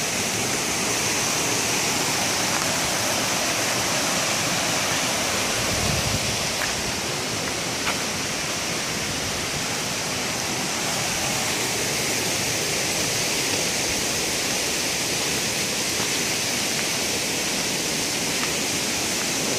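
Steady rushing of a rocky woodland stream cascading over stones, an even, unbroken wash of water noise.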